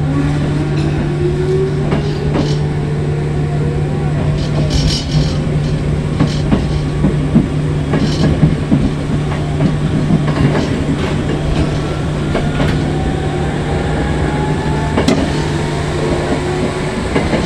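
Electric train heard from the driver's cab as it pulls away from a station: a motor whine rising in pitch as it gathers speed, over a steady low hum, with wheels clicking over rail joints every second or two.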